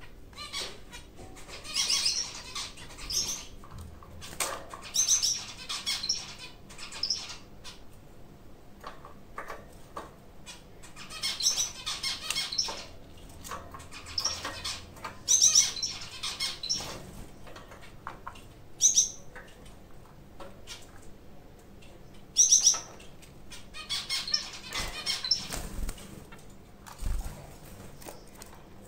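Zebra finches calling in irregular clusters of short, high, nasal calls, mixed with wing flutters as they move about the cage. Two soft low thumps come near the end.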